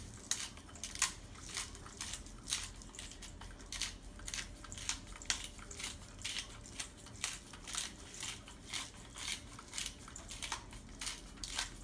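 Hand-twisted pepper grinder cracking peppercorns in a steady rhythm of short crunchy strokes, about three a second.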